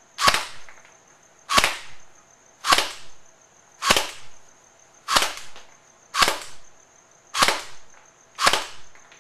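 Electric airsoft M4 (G&G Femme Fatal AEG) firing single shots through a chronograph to measure muzzle velocity, which reads about 350 fps with 0.20 g BBs. Eight sharp cracks come about one every 1.2 seconds, each trailing off briefly.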